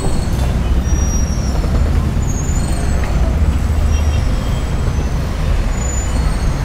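Steady low rumble of road traffic, with a few faint, short high chirps.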